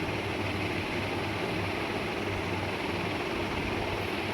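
Steady hiss and rumble of a lit gas stove burner, with spiced masala cooking in the kadai above it.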